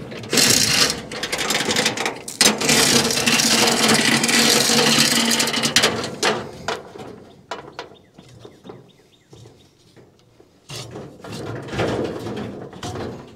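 Wooden frame scraping and rubbing across a corrugated steel truck bed as it is dragged and turned: a long rough scrape for the first few seconds, then scattered knocks and rubs, and another scrape near the end.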